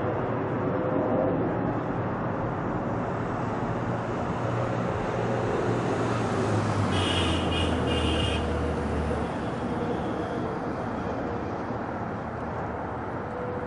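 Steady jet-engine roar of a Boeing 777 on approach, mixed with road traffic. A low hum drops in pitch midway, and brief high chirps come about seven seconds in.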